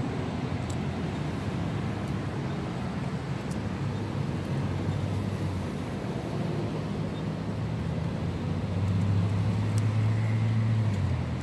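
An engine running steadily with a low hum, louder for about two seconds near the end.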